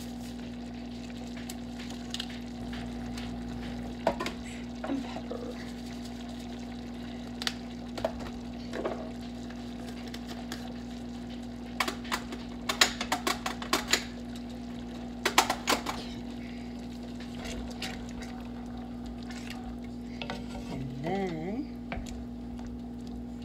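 Kitchen clatter: sharp clicks and knocks, coming in two dense clusters in the middle, then a wooden spoon stirring thick tomato meat sauce in a stainless steel skillet near the end. A steady low hum runs underneath.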